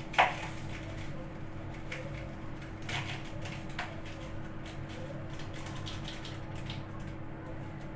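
Kitchen clatter of pots and utensils at a stove: a sharp metallic clink with a brief ring just after the start, then a few lighter knocks and clinks, over a steady low hum.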